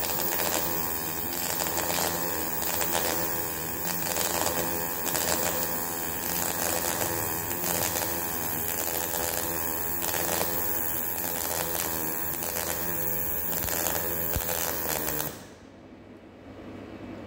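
MAG welding arc crackling and spitting during a vertical-up weld, pulsing in an even rhythm a little more than once a second. The arc cuts off about fifteen seconds in, leaving a low workshop hum.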